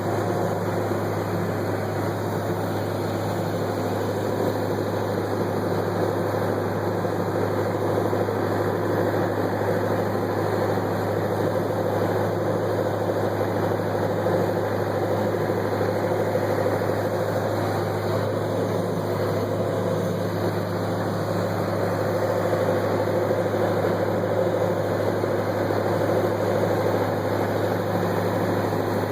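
Backhoe engine running at a steady speed.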